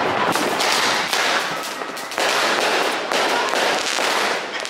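Firecrackers going off: a rapid, irregular run of loud bangs, each trailing off briefly.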